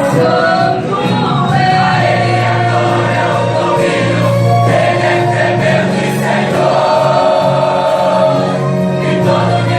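Gospel choir singing a hymn with instrumental accompaniment, voices holding long notes over a steady bass line.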